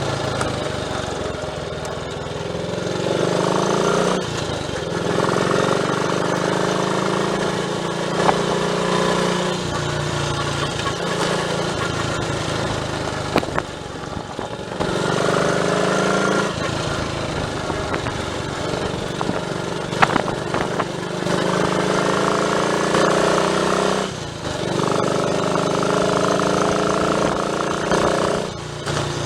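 Triumph Tiger Cub's 199 cc single-cylinder four-stroke engine under way on the road. It rises in pitch over a few seconds at a time, then drops briefly, again and again, as it pulls up through the gears.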